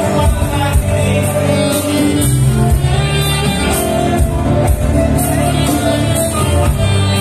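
Men's vocal group singing with a live band that includes a guitar.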